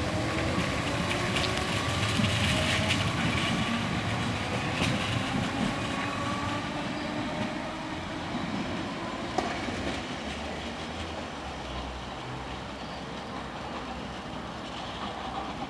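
Merseyrail PEP-type electric multiple unit pulling away: its traction motor whine rises in pitch over the first several seconds along with wheel-on-rail noise, then fades as the train draws off. A single click comes about nine seconds in.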